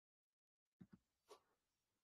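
Near silence, with two faint soft knocks and a brief faint rustle a little before and after halfway, then faint hiss.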